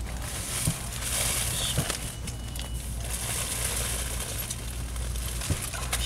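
Rustling of plastic-wrapped toilet paper packs being handled, with a few light knocks, over a steady low hum; a short faint beep sounds about two seconds in.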